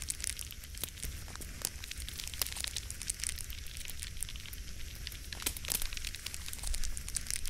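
Forge fire crackling: irregular sharp pops and snaps over a steady hiss, with a low rumble beneath.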